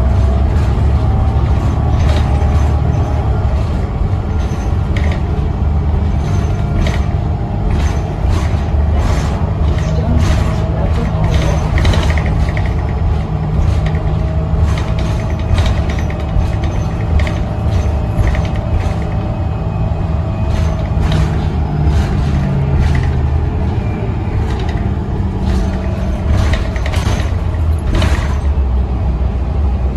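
Interior ride noise of a New Flyer Xcelsior XD40 city bus under way: the Cummins ISL9 diesel and road noise make a steady low drone, with frequent clicks, rattles and creaks from the cabin fittings.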